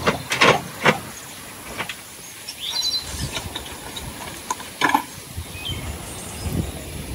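Empty metal wheelbarrow clanking and rattling as it is pushed along, with a few sharp knocks in the first second and another about five seconds in.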